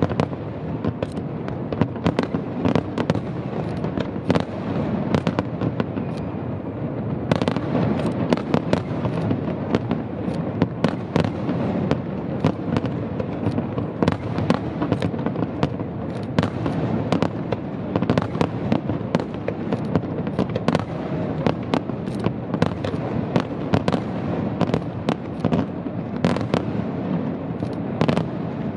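Fireworks display: aerial shells bursting in a dense, unbroken run of sharp bangs, several a second, over a steady background of crackle.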